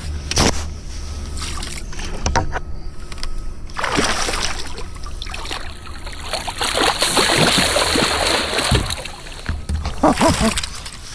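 A large foul-hooked fish thrashing at the surface beside a kayak: water splashing and sloshing hard from about four seconds in, easing off near the end.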